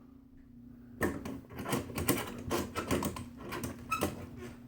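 Rapid clicking and rattling from handling an LED recessed light fixture, starting about a second in and lasting about three seconds, over a steady low hum.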